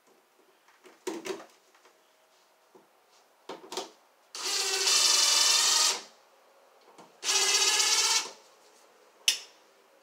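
Cordless drill driving an outlet's mounting screws into an electrical wall box: two short runs of the motor whine, about two seconds and then one second long, each stopped short so the screw holes in the box aren't stripped. A few brief bursts come before them and a sharp click near the end.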